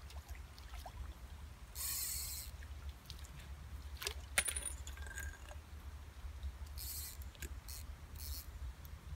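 A hooked carp being played and netted at the bank: a short splash about two seconds in, a sharp knock about four seconds in, then several short clicks and rasps from the fishing tackle near the end.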